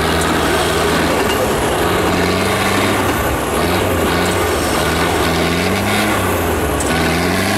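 Off-road truck engine running hard and revving up and down in repeated rises, steady and loud, under load while the truck is stuck climbing a steep muddy bank.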